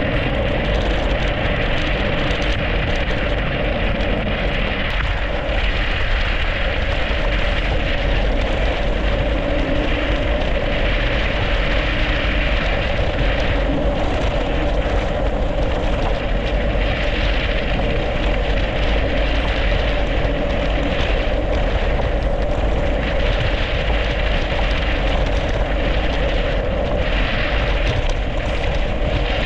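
Steady wind rush and rumble on the microphone of a mountain bike riding downhill at speed, mixed with the tyres rolling over a snowy, icy road.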